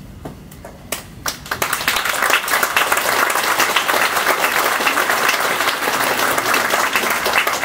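Audience applause: a few scattered claps about a second in, quickly swelling into full, steady clapping from many hands.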